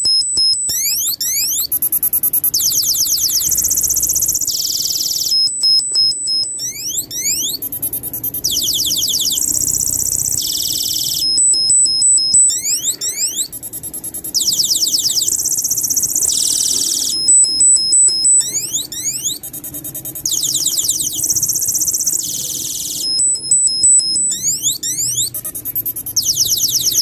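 12-volt electronic bird-chirp siren for a car or motorcycle, playing its sparrow-chirping tune. It loops high-pitched electronic chirps, rapid falling whistle sweeps and steady beeps, repeating about every six seconds.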